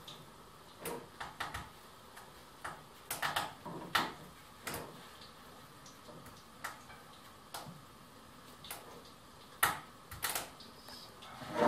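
Irregular light clicks and taps from kitchen paper being handled and fried apple rings being set down on a porcelain plate, some in quick little clusters.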